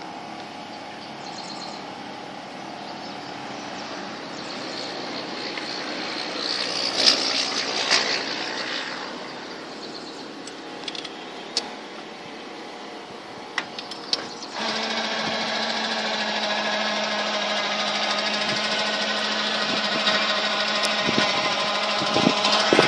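Electric motor of a trike's powered wheelchair lift whining steadily at an even pitch, starting abruptly about two-thirds of the way in. Before it, a quieter hum with a few sharp clicks and knocks.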